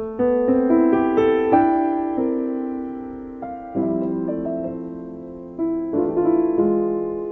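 Instrumental jazz piano and guitar duet, the piano to the fore: chords struck and left to ring, with new notes every second or two.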